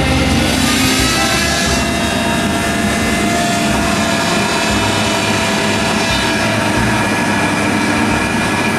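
Truck-mounted well-drilling rig running loud and steady as its control levers are worked, the engine's pitch rising over the first couple of seconds and then holding.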